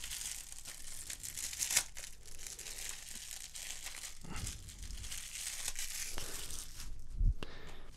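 Clear plastic shrink wrap being peeled and crinkled off a Blu-ray case by hand, with a continuous crackle and a few sharper bursts. A soft knock comes near the end.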